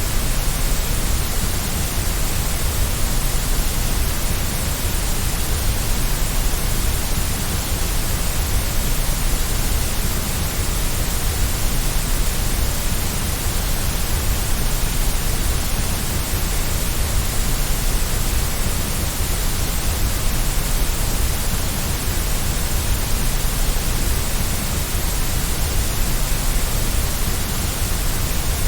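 Steady white noise: an even, unchanging hiss with no breaks or variation.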